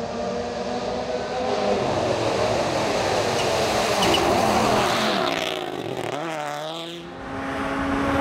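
Rally car engine running hard on a stage. About five seconds in, the engine note drops sharply and then climbs again, as the car lifts off and accelerates away.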